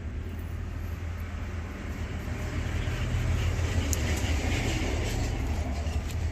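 Low steady rumble of a vehicle, with a hiss that swells a few seconds in.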